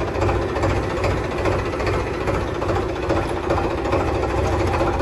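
Farmtrac tractor's diesel engine running steadily, heard from the driver's seat, with a low, even rumble.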